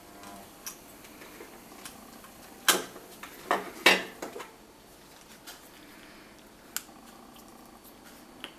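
Handling noise from a rubber gas mask and its metal filter canister: a few light clicks and a short cluster of sharp knocks and clatters, loudest about three to four seconds in.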